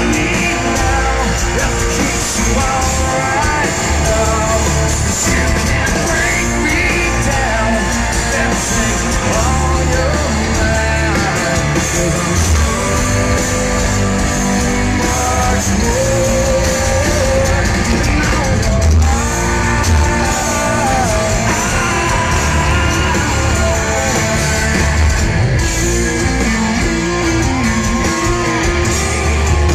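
Rock band playing live, heard loud from within the crowd: electric guitars, bass and drums with singing.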